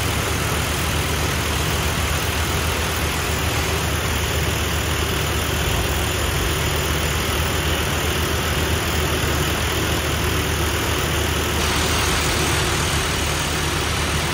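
Heavy construction machinery engine running steadily, a constant low drone with no change in speed.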